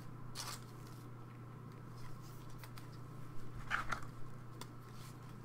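Faint rustles and soft scrapes of trading cards being slid and flipped in gloved hands, a few separate strokes with a small cluster near the end. A steady low hum runs underneath.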